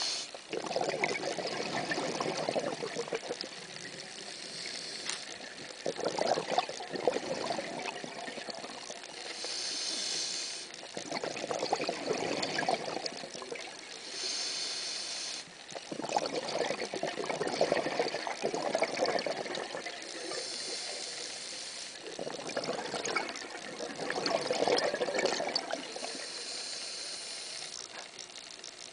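A scuba diver breathing underwater through a regulator: a short hiss on each inhale, then a longer rush of exhaled bubbles, about five breaths, one every five to six seconds.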